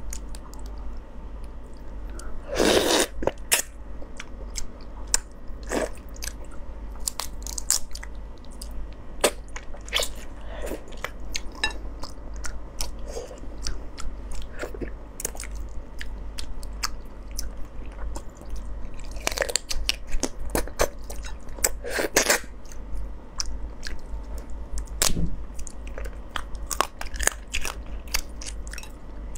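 Close-miked eating of marinated raw crab: chewing, sucking and wet smacking at the meat, with crunching and cracking of shell and many small wet clicks. Louder bursts come about 3, 19 and 22 seconds in.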